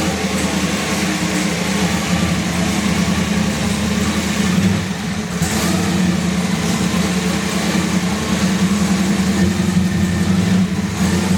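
Race car engine running at a fairly steady, loud pitch, dipping briefly about five seconds in.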